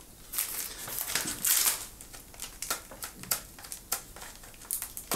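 Packaging wrap crinkling and rustling as a parcel is handled and unwrapped, with irregular small clicks and crackles.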